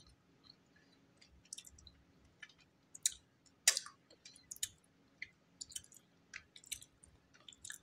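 Dry layers of multani mitti (fuller's earth) crunching: sparse, irregular crisp crackles, with a couple of louder ones about three and a half seconds in.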